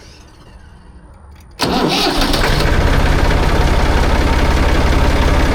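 Massey Ferguson 240 tractor's diesel engine starting about a second and a half in, then running loudly and steadily, with the new fuel shutoff cable pushed in to let fuel through.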